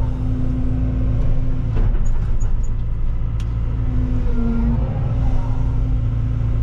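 Cat 313 excavator's diesel engine running steadily, heard from inside the cab, with the hydraulics working the boom and bucket. A tone in the hum shifts briefly about four seconds in, and there are a couple of light knocks.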